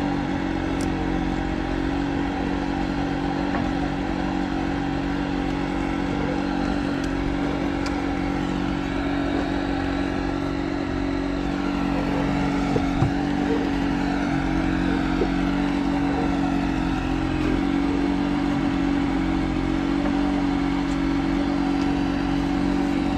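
Small engine running steadily at a constant speed, an even hum that does not change.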